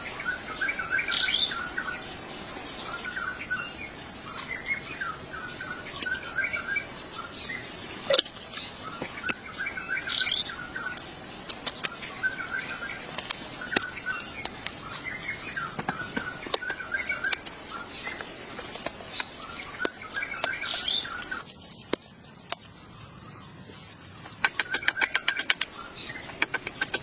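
Birds chirping in short repeated phrases, with scattered sharp clicks or knocks. Near the end comes a fast run of clicks, several a second.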